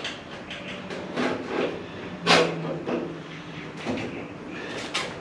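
Knocks, rattles and scraping of a steel car-body cowl being handled while a plastic strip is worked into its joint. There are about five irregular knocks, the loudest a little over two seconds in.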